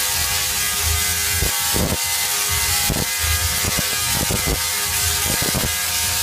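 Tesla coil firing: a steady electric buzz with irregular sharp cracks from the spark discharges.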